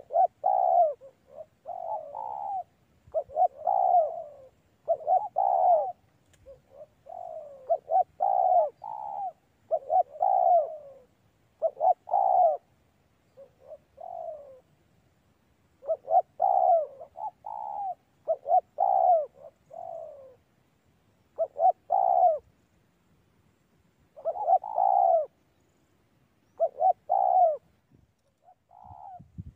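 Spotted dove (tekukur) cooing over and over: a long run of short, repeated coo phrases, one roughly every second, with a few brief pauses.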